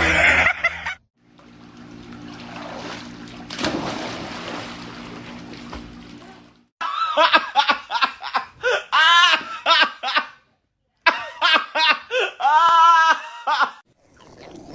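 A few seconds of noisy hiss over a steady low hum, then someone laughing hard in rapid bursts for about seven seconds, pausing once midway.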